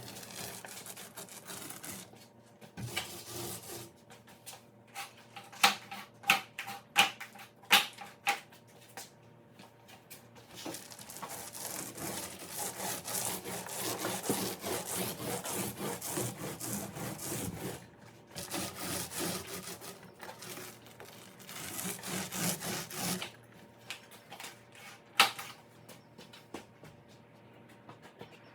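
Scraping and rubbing in long stretches, hand work on the pontoon deck while laying vinyl flooring. A cluster of sharp knocks comes about six to eight seconds in, and a single knock near the end.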